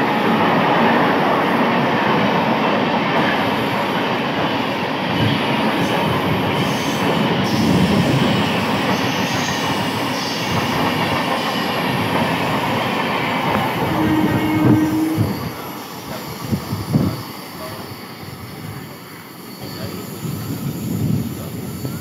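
Dhanbad–Howrah Coalfield Express passenger coaches running past along the platform, a steady rumble and clatter of wheels on rail joints. The noise drops away about fifteen seconds in as the last coach passes, leaving fainter scattered knocks.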